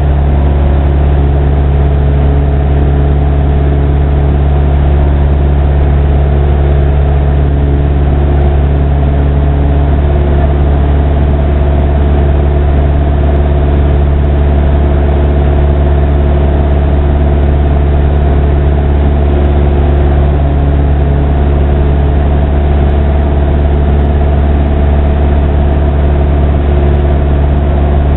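Airplane engine and propeller drone, loud and steady, with a deep hum and a stack of even tones that hold the same pitch throughout.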